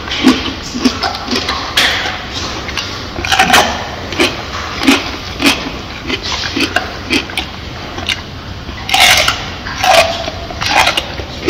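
Close-up sound of a silverback gorilla chewing a mouthful of banana, about two chews a second. A few louder, noisier bites or smacks come about three and a half seconds in and again around nine to ten seconds in.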